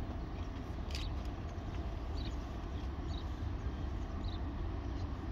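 Steady low rumble of a distant locomotive moving slowly along the yard tracks, with a few faint short high chirps about every second and a single sharp click about a second in.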